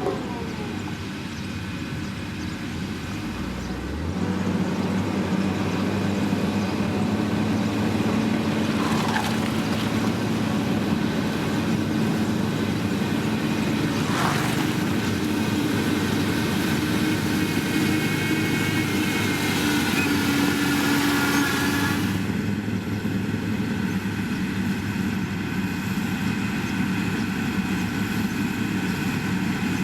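Heavy road-construction machinery running steadily, its engine note rising in level about four seconds in. A hiss joins it partway through and stops suddenly about three-quarters of the way in.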